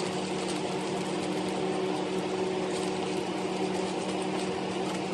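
A steady mechanical hum, a constant low drone with its overtones, with faint crinkling of aluminium foil pressed by hand around a rack of ribs.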